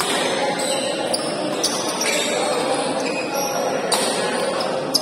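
Badminton rackets striking the shuttlecock during a fast doubles rally: a few sharp, irregularly spaced hits, the last near the end. Under them runs the steady murmur of spectators echoing in a large hall.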